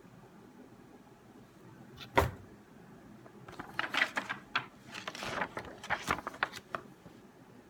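A single sharp knock about two seconds in, then a few seconds of crackly rustling as a paper booklet and its packaging are handled.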